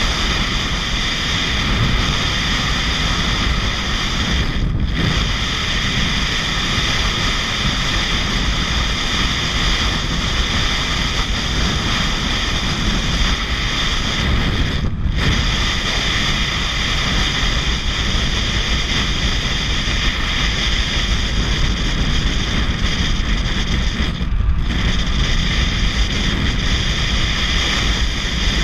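Heavy wind rush over an action camera's microphone on a motorcycle at highway speed, with engine and tyre noise beneath it. The rush briefly thins out three times.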